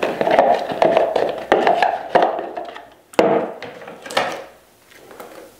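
Several short clicks and knocks of a socket ratchet wrench loosening an air compressor's oil drain plug, with a plastic measuring cup handled against a plywood floor.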